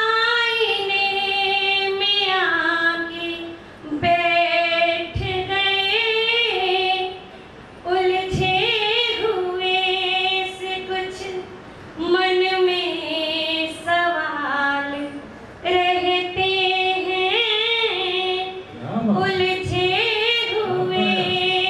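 A woman singing a Hindi poem solo into a handheld microphone, with no instruments. She holds long notes with ornamented turns and bends, in phrases of two to four seconds with short breaths between them.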